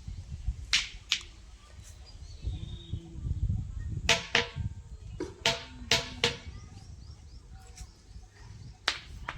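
A stone being struck, giving sharp clinks that sound like iron; about eight strikes in irregular groups of one to three.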